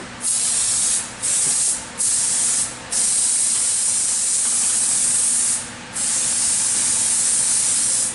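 Adhesive sprayer hissing steadily as glue is sprayed onto a fiberglass sheet, broken by brief stops about 1, 2 and 3 seconds in and again near 6 seconds.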